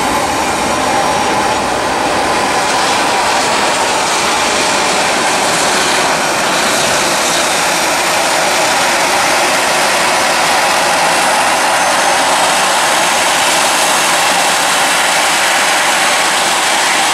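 Jet engines of an Airbus A320 airliner on final approach to landing: a steady, loud rushing jet noise with a faint steady whine.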